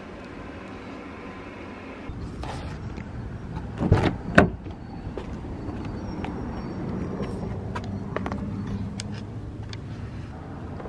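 Handling sounds at an open car rear door beside a child's car seat: two loud knocks about four seconds in, then scattered light clicks over a steady outdoor background.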